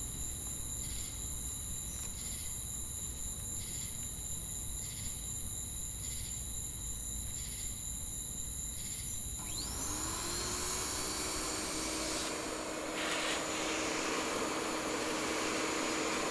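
Steady high insect trilling, then about nine and a half seconds in a machine spins up with a rising whine and keeps running with a steady hum and rushing noise.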